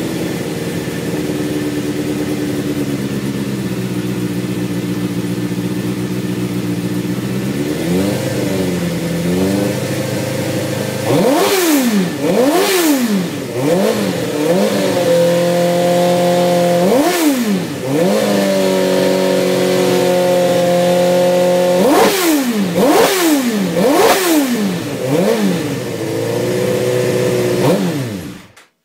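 Suzuki GSX-R inline-four engine idling steadily, then blipped on the throttle again and again from about eight seconds in, each rev rising sharply and dropping back. It shuts off suddenly just before the end.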